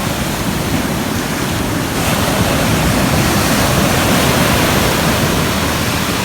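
Sea surf washing in at the shore: a loud, steady rush of breaking waves that swells a little about two seconds in.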